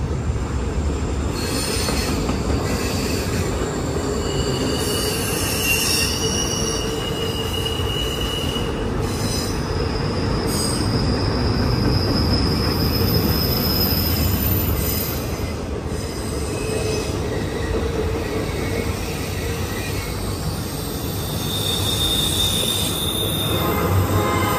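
Double-stack intermodal train's well cars rolling past with a steady rumble of wheels on rail. High-pitched wheel squeal comes and goes several times over it.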